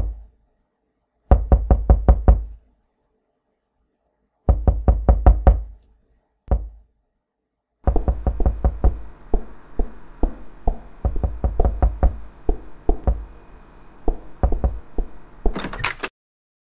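Knocking on a wooden door: quick bursts of seven or eight knocks with pauses between, then more scattered knocks over a steady hiss, and a short scraping noise near the end.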